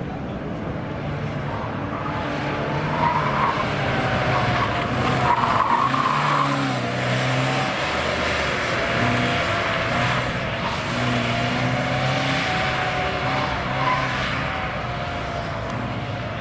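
Classic Škoda saloon driven hard through a cone slalom: the engine revs rise and fall between turns, and the tyres squeal in a wavering tone through much of the run.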